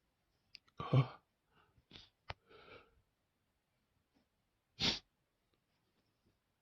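A person sneezing in a fit brought on by sniffing chhinkni sneezing powder: a loud voiced sneeze about a second in, a quick breath or sniff, then a second short, sharp sneeze near five seconds.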